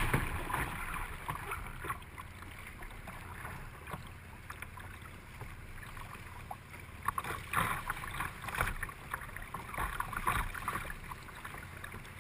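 River water rushing and splashing against a kayak, close to the microphone. It is loudest at the start and eases off, with a run of irregular splashes about two thirds of the way in.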